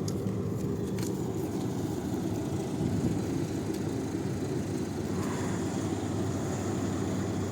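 A steady low motor hum, with a few faint clicks near the start.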